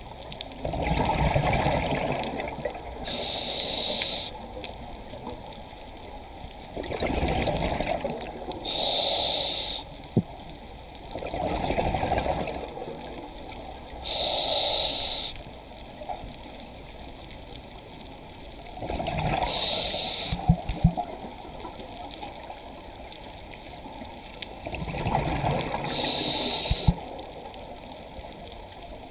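Scuba diver breathing through a regulator underwater: about five breaths, roughly every six seconds, each a rush of exhaled bubbles paired with a higher hiss from the regulator. A few sharp clicks come between.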